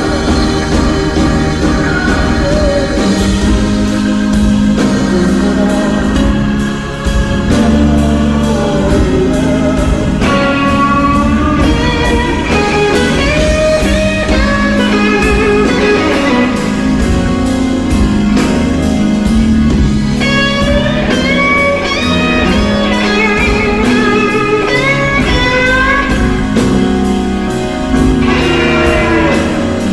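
Electric blues guitar playing lead lines full of string bends and slides, over a steady bass and drum groove.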